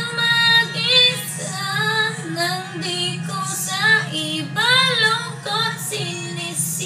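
A woman singing a slow Tagalog love song in one melodic voice, over a steady low hum.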